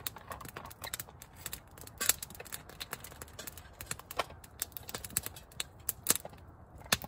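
Campfire of dry wood crackling, with irregular sharp pops and snaps; the loudest come about 2, 4 and 6 seconds in and just before the end.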